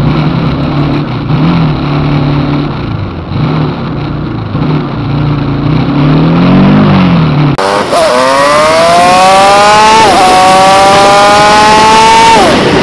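Motorcycle engine running while riding, its pitch rising and falling with the throttle. A little past the middle the sound changes abruptly to a louder engine with wind rush, climbing steadily in pitch as it accelerates and dropping at gear changes, once in the middle of that stretch and again near the end.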